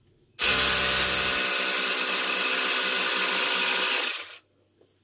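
Electric air pump running steadily for about four seconds, filling a flat 20-inch bicycle tire through a chuck clamped on the valve stem; it starts abruptly about half a second in and cuts off near the end.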